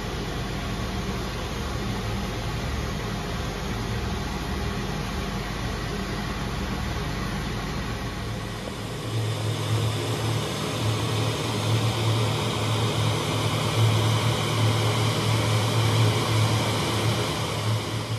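Steady machine hum with a hiss, the background noise of a workshop. The low hum grows louder about nine seconds in.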